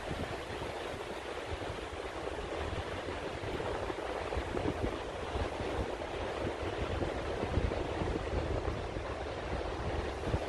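Ocean surf breaking and washing up onto a sandy beach: a steady rushing noise with a low, uneven rumble underneath.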